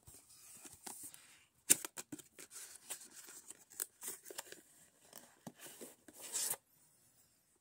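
Small cardboard knife-kit box being handled and opened: scattered clicks, scrapes and rustling, with a sharp click just under two seconds in and a brief tearing rustle a little over six seconds in.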